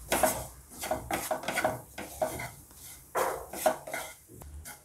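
Wooden spatula scraping and stirring grated coconut and spices around a non-stick frying pan in a quick series of strokes, the coconut being dry-roasted with fennel seeds, chili powder and coriander powder.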